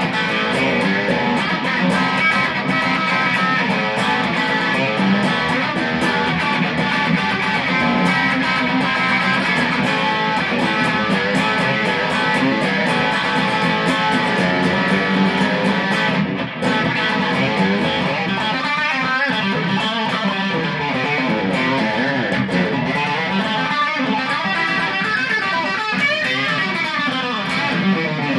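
Fender Sixty-Six electric guitar played through an amp with overdrive, strummed chords and riffs without a break. In the second half it moves into single-note lines with bends and vibrato.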